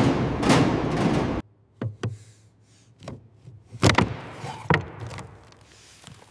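A steady mechanical noise that cuts off abruptly about a second and a half in, followed by a handful of separate knocks and clunks, the loudest about four seconds in.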